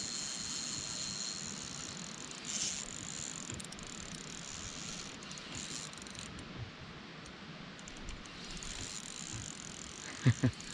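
Spinning reel being cranked to wind in a hooked fish, a soft steady mechanical whirr from the reel. Two short low knocks near the end.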